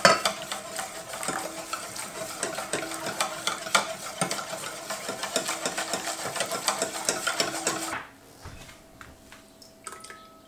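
Wire whisk beating a flour-and-milk mixture in a stainless steel mixing bowl: a fast, even run of metal clinks and scrapes against the bowl while hot milk is poured in. It stops abruptly about eight seconds in.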